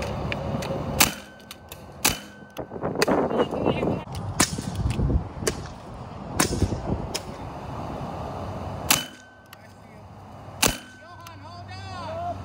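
PCP air rifle firing a series of sharp shots, about six, a second or two apart.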